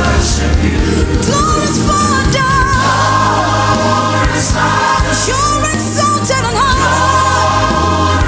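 Gospel worship music: voices hold long notes with vibrato over instrumental accompaniment with a steady bass.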